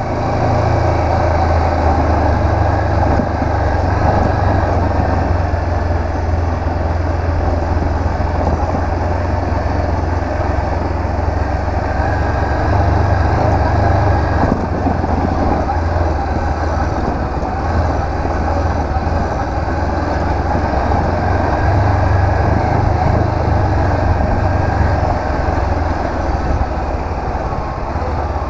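Honda CB500X's parallel-twin engine running steadily while the motorcycle is ridden, under a steady rush of noise.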